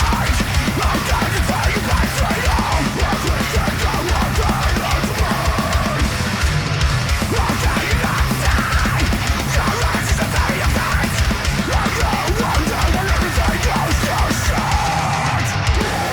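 Heavy metal song playing: distorted guitars over very fast, dense drumming, loud and unbroken.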